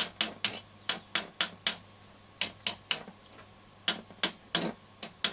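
Irregular sharp clicks, often in twos and threes, from a thin metal probe tapping on the transistors inside an early Roberts R200 transistor radio.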